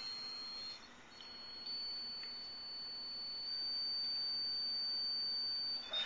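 A steady, high-pitched tone from a spirometer sensor while a man blows out through it as hard and as long as he can for a forced vital capacity (FVC) test. The tone breaks off briefly about a second in and stops near the end, when the exhalation ends.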